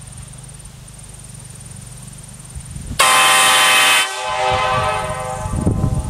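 Nathan K5LA five-chime locomotive air horn sounding one blast about three seconds in, several chime notes at once, loudest for its first second and cutting off about two and a half seconds later. It is blown at 200 psi, above the 150 psi these horns are rated for, which the tester says does not make the horn louder.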